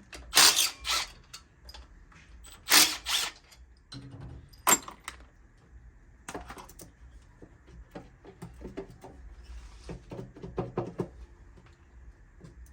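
Tools working on car engine parts: two loud, harsh bursts of tool noise about two seconds apart, a sharp metallic clank a couple of seconds later, then a run of quieter clicks and clatter.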